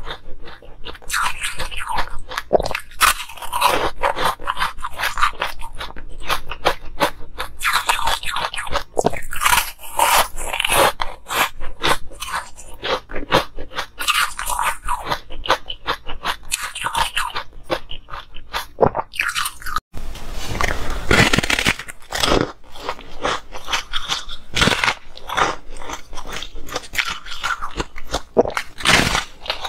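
Hard ice being bitten and chewed close to the microphone: dense, irregular crunching throughout, with a brief break about two-thirds of the way through.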